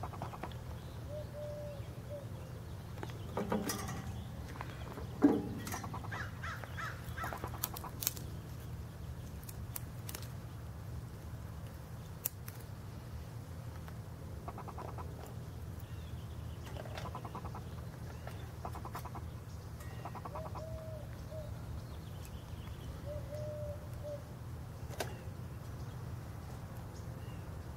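Birds calling outdoors, a few harsh caw-like calls among short higher calls, over a steady low background hum, with several sharp clicks and knocks, the loudest about five seconds in.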